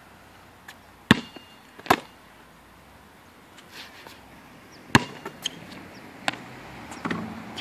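A basketball bouncing on an outdoor hard court: a handful of sharp, separate bounces at uneven intervals.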